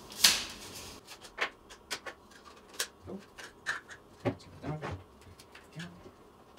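Handling noise as a Canon lens is fitted to a Canon 5D Mark IV body: a short, loud brushing rustle at the start, then a string of light clicks and knocks of plastic and metal parts.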